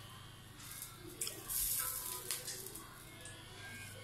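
Cooking oil being poured into a wok, with a couple of light clinks partway through.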